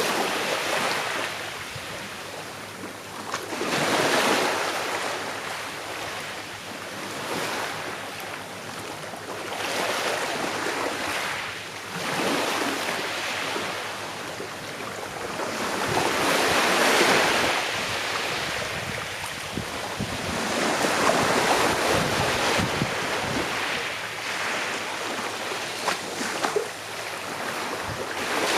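Sea waves breaking and washing on a shore, each swell rising and fading every few seconds, the largest about a quarter and about two thirds of the way through.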